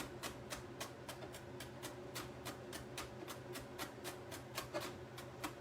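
Knife chopping a jalapeño finely on a cutting board: quick, even taps, about three a second.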